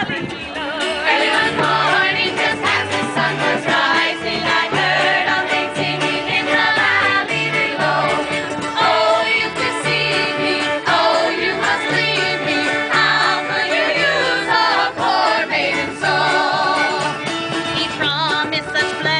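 Several voices singing a tavern song together over instrumental accompaniment, with a steady repeating bass line.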